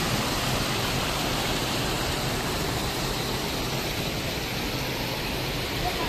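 Steady rush of water pouring over a low stepped weir and churning white into the pool below.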